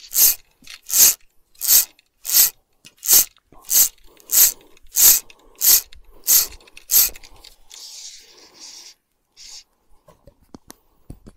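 Fly line being stripped in by hand, each pull a short rasping zip of line through the fingers and rod guides, about eleven even pulls at roughly three every two seconds, stopping about seven seconds in.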